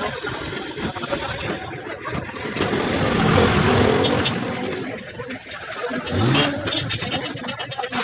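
An engine revving, its pitch rising about three seconds in and again sharply about six seconds in, with a steady high hiss that stops about a second and a half in.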